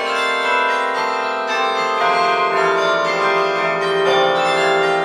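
Bells ringing in a continuous peal, many tones struck one after another and ringing on over each other.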